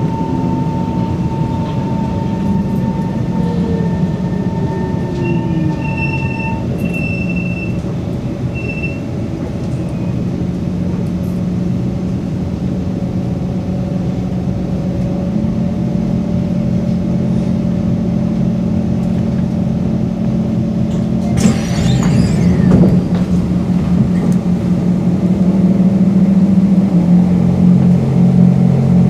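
Singapore MRT train heard from inside a car by the doors: steady motor hum and wheel noise as it slows into a station. About two-thirds through there is a brief loud burst of hiss near the stop.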